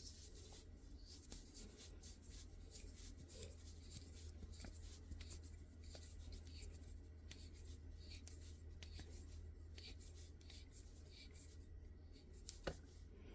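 Faint rubbing and light clicks of hands working an MGW sight pusher on a Glock slide to set the rear sight, over a steady low hum, with one sharper click near the end.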